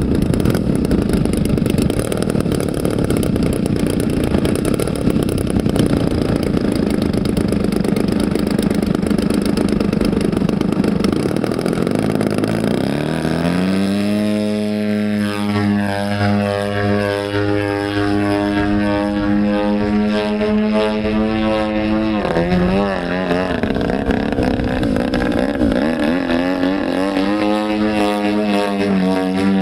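Engine of a 120cc-class radio-controlled Yak 54 model aeroplane running rough and low while the plane sits and taxis, then opened up about thirteen seconds in. The pitch rises to a steady full-power note for the takeoff run and climb. Near the end it dips briefly and rises again.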